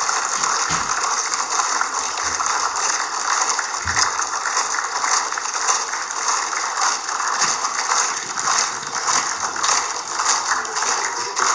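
Applause: many hands clapping in a steady, dense patter that does not let up.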